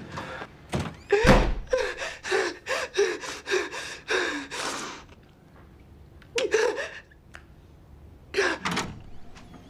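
A woman sobbing in short, shaky gasps, a burst about every third of a second, then two more ragged sobs with pauses between. A low thump comes about a second in.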